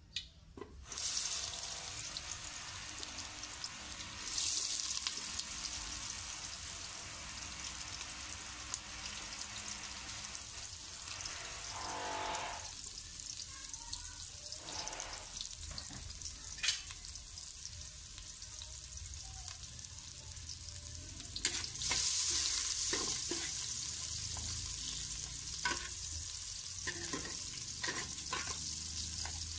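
Chopped onion and garlic frying in hot oil in an aluminium pot, a steady sizzle that starts about a second in and swells louder twice, briefly around four seconds and again from about twenty-two seconds. A metal ladle clicks and scrapes against the pot as the aromatics are stirred near the end.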